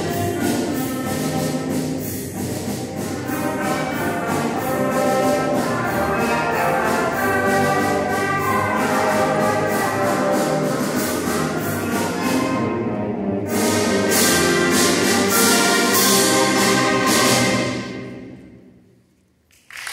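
Middle school symphonic band, brass and woodwinds over a steady percussion beat, playing the closing bars of a piece and building to a loud finish. The last chord dies away to silence, and applause breaks out just at the end.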